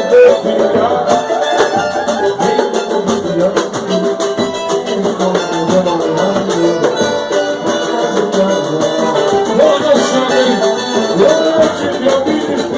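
Samba band playing live: percussion keeps a dense, steady beat under a wavering sung melody.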